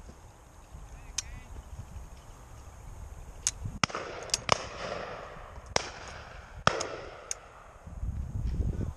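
Shotgun shots on a pheasant shoot: about eight sharp cracks at irregular intervals, some louder than others, with a low rumble just before the end.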